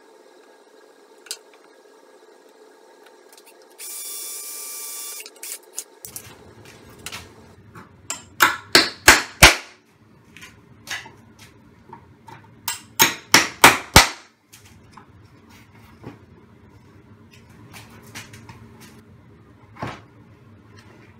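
Hammer driving nails into an OSB board: two runs of sharp blows, about five and then about six, each run quickening, a few seconds apart. Before them, a short steady noise lasting about two seconds, and a few light knocks afterwards.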